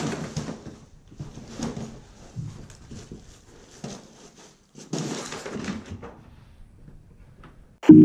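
Bags and a box being dropped and shuffled on a hard floor: irregular rustling, scraping and dull thuds, with a longer scuffle about five seconds in. Piano music starts suddenly right at the end.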